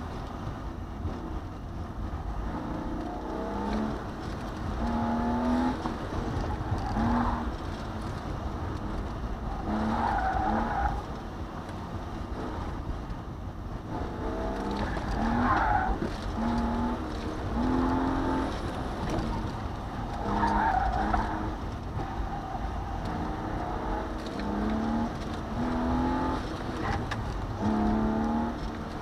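BMW E36 M3's straight-six engine, heard from inside the cabin, revving up and dropping again and again as the car is driven hard through an autocross course. The tyres squeal in the corners several times.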